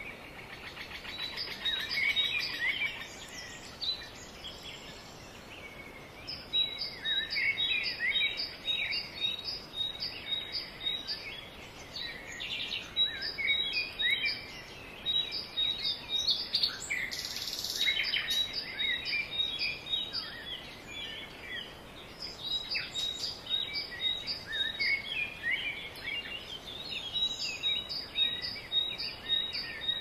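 Small birds calling and singing in the open: runs of short, evenly repeated high notes at about two to three a second, mixed with other quick chirps, over steady background noise. A brief rustle comes a little past halfway.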